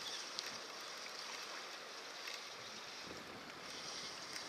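Faint, steady wash of sea water at the shore, with a few faint clicks.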